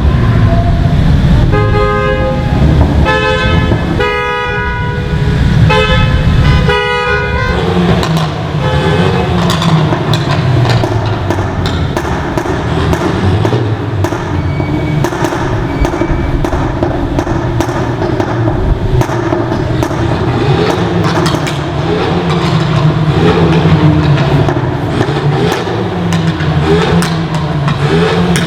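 A car horn sounding about five short two-note toots in quick succession, followed by car engines running and revving, their pitch rising and falling as they pass.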